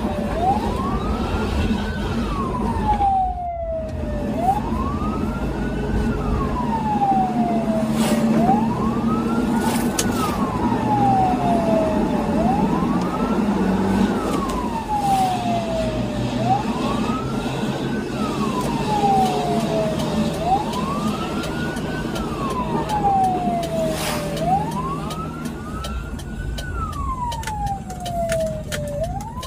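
Ambulance siren on a slow wail, heard from inside the cab: each cycle rises quickly, then falls slowly, repeating about every four seconds. Under it runs the ambulance's engine and road noise.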